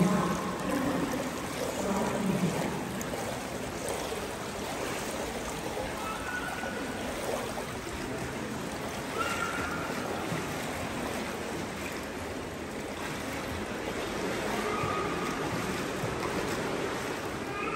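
Indoor swimming pool ambience: a steady wash of water noise, as from pool water lapping into the overflow gutters, echoing in the hall.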